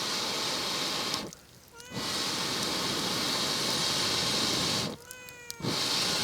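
A cat meowing repeatedly, one clear call about a second and a half in and another near the end, over a steady crackling hiss from the campfire that cuts out briefly twice.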